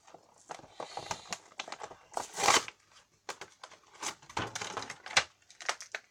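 Action figure's plastic blister and cardboard packaging being handled: irregular crinkling and sharp clicks, with a louder crackling burst about two and a half seconds in.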